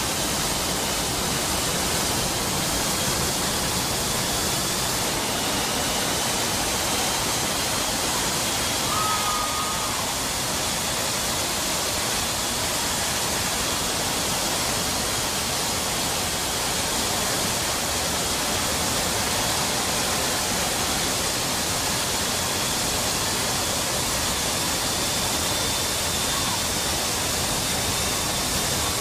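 Steady rushing noise of wind and jet engines inside a C-17 cargo hold, with the paratroop door open in flight.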